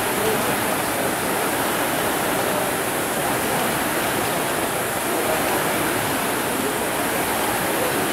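Steady rushing whir of several air-resistance rowing ergometers, their fan flywheels spinning as the rowers race.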